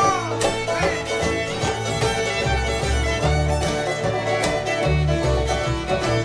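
Instrumental bluegrass music, fiddle and banjo over a steady bass line, with no singing.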